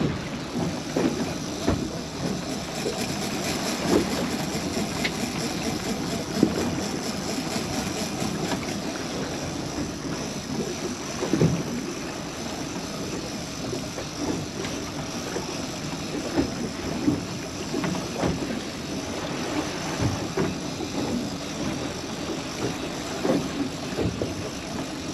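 Steady wind and water noise on an open boat at sea, with scattered knocks and thumps.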